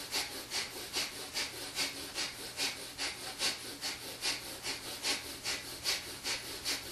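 A person breathing in breath of fire: quick, forceful nasal exhales at an even pace of about four a second.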